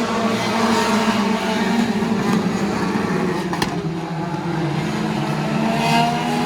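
Race car engines running hard around the track, their pitch wavering and climbing toward the end as the cars accelerate.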